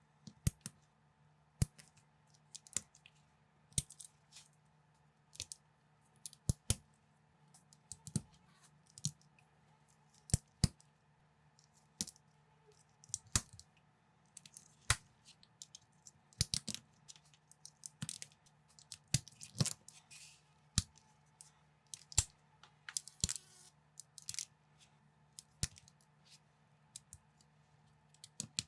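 LEGO bricks clicking and snapping together as they are handled and pressed into place, in sharp irregular clicks about once a second over a faint steady hum.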